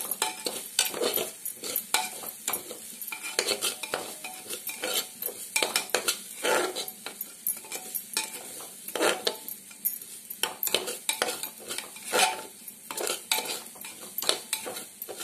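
Slotted metal spatula scraping and clinking against the inside of a metal pressure cooker in repeated, irregular strokes as rice is stirred and roasted in ghee.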